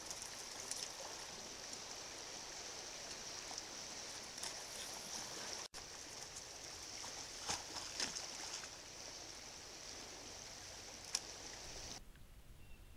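Steady hiss of a shallow creek running past ice along its bank, with a few sharp ticks over it. The sound cuts out for an instant about halfway and drops away near the end.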